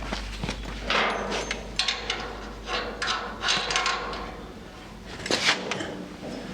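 Metal suspension hardware being handled and fitted while coilover shocks are bolted on: an irregular string of clinks, knocks and short scrapes, over a low steady hum.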